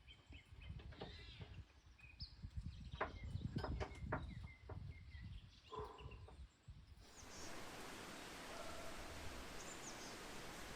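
Outdoor ambience: a low rumble with several sharp knocks and a few short bird chirps. After about seven seconds it changes abruptly to a steady even hiss with occasional faint bird calls.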